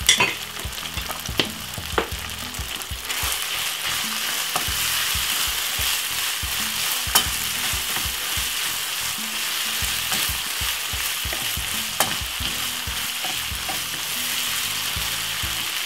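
Curried lamb mince sizzling steadily as it fries in a nonstick pan, stirred with a wooden spatula, with a few sharp knocks of the spatula against the pan.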